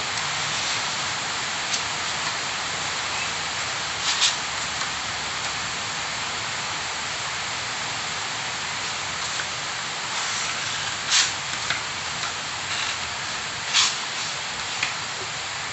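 Putty knife scraping wet wall putty across a plastered wall, with a few short, sharp scrapes about 4, 11 and 14 seconds in, over a steady hiss.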